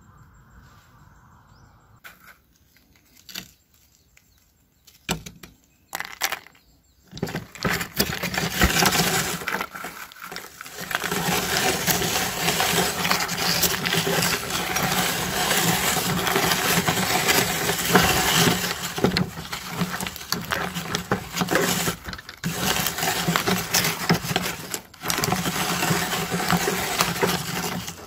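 Hand-cranked stainless steel meat grinder crushing dry puffed corn snacks into powder: continuous crunching and crackling that starts about seven seconds in, with brief dips, after a few light knocks of handling.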